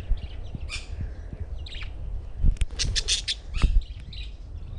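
Budgies chirping and chattering in quick, short high calls, over a low rumble, with two louder low bumps in the second half.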